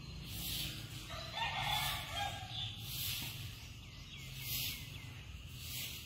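Repeated swishes of a long-handled broom sweeping leaves across a dirt yard, about one stroke every second and a half. A rooster crows once, starting about a second in.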